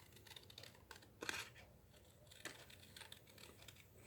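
Scissors snipping through card while cutting around a stamped image: a few faint, separate snips, the loudest a little over a second in.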